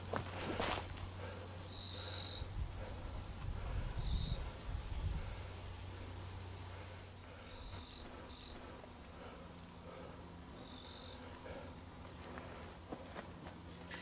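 Insects trilling in the forest: one high, unbroken trill, with short higher chirps now and then and a quick pulsing call for a couple of seconds past the middle.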